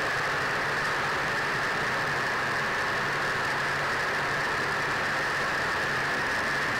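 Steady drone of a B-25 Mitchell's twin Wright R-2600 radial engines and propellers in cruising flight, heard inside the glazed nose together with the rush of air past it.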